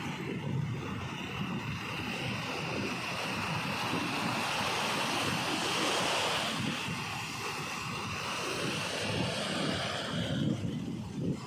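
Sea surf washing onto a beach, with a wave breaking and rushing in about halfway through, and wind buffeting the microphone.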